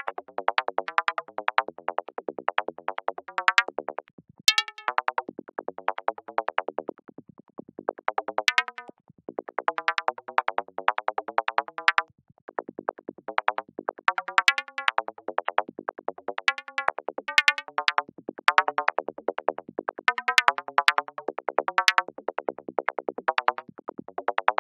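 Software modular synthesizer patch in VCV Rack playing a forest psytrance sound effect: fast runs of short, plucked, pitched electronic notes, many a second, in phrases broken by brief gaps about 4, 8 and 12 seconds in.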